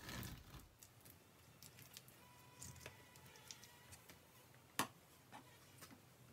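Near silence with faint scattered clicks and taps as a wooden honeycomb frame is handled at a honey extractor, and one sharp knock nearly five seconds in.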